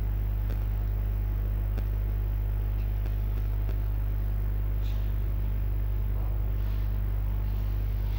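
Steady low electrical hum, with a few faint sharp taps of chalk dotting a blackboard.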